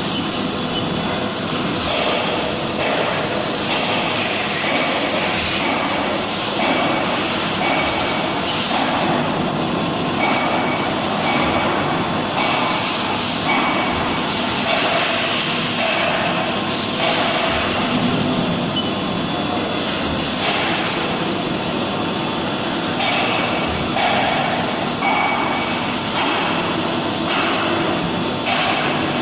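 Haas VM-2 CNC vertical mill cutting steel: a steady, loud machining noise that changes in tone every second or two, with a thin high tone coming and going.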